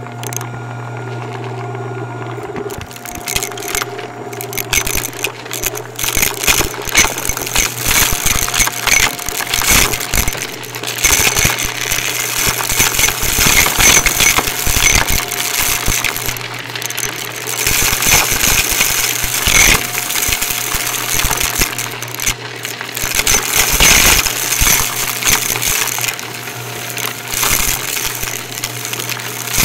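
Shark Navigator upright vacuum running with a steady motor hum while it sucks up dry debris from the floor. The debris crackles and rattles through it in dense, irregular bursts from about two seconds in.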